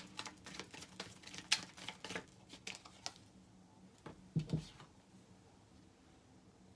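Tarot cards being shuffled by hand: a quick run of soft card clicks for about three seconds, then a couple of soft thumps.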